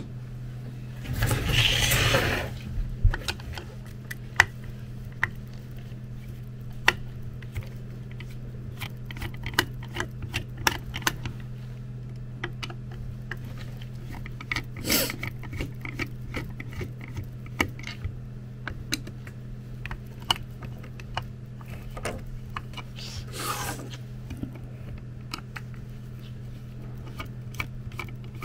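Hand screwdriver turning out the screws of a car air compressor's plastic end housing: a run of small irregular clicks and scrapes as the screws turn, with a few louder scraping rustles about a second in, midway and near the end. A steady low hum runs underneath.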